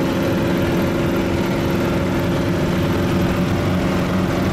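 Vehicle engine running at a steady speed while driving slowly on a rough gravel road, a constant drone heard from inside the cab over low road rumble.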